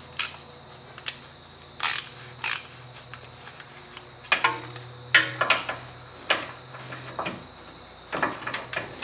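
Hand tools clinking and knocking on metal, in irregular single strikes with short rings: a wrench and socket being fitted to the lower ball joint's castle nut and worked to loosen it for re-torquing.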